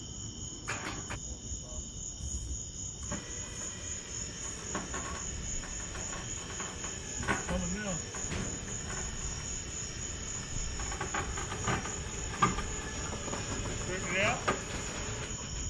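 Crickets chirping at night in a steady, high-pitched chorus with a fast even pulse, continuing without a break.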